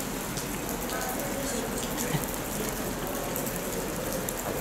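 Steady rain falling on a wet station platform: an even hiss with scattered drip ticks.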